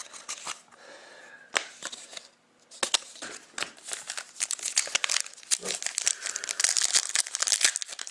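A few scattered light clicks, then from about three seconds in the dense crinkling and tearing of a trading card pack's wrapper being torn open.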